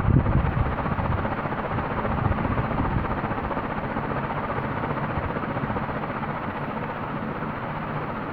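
A 1989 KDK T56ZK ceiling fan running, heard as a steady rush of moving air with low buffeting on the microphone. The buffeting eases after the first second or so, and the sound grows slowly quieter.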